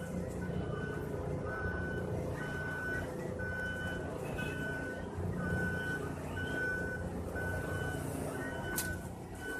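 A vehicle's reversing alarm beeping steadily, one single-pitched beep about every second, over a low steady rumble.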